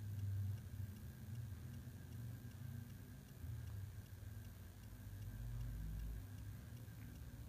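Faint room tone: a low steady hum with a thin high tone above it.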